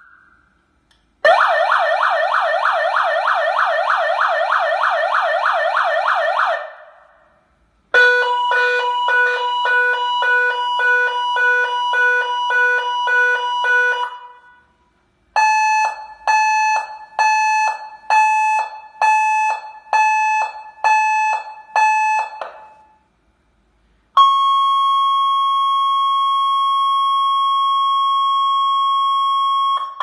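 HDSL-135 electronic alarm siren sounding through its twin horn speakers, stepping through its tones as its control wires are connected in turn. First comes a fast warbling sweep, then a rapid pulsing tone, then separate beeps about once a second, then a steady continuous tone. Each tone cuts off with a second or so of silence before the next.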